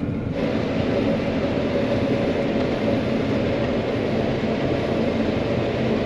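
John Deere 9500 combine running steadily while harvesting corn, heard from inside the cab: engine and threshing machinery with a few held tones over a constant rumble.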